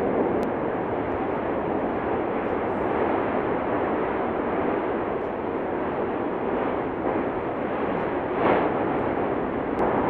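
Cumbre Vieja volcano erupting, its vents fountaining lava: a steady, dense rushing noise that swells briefly about eight and a half seconds in.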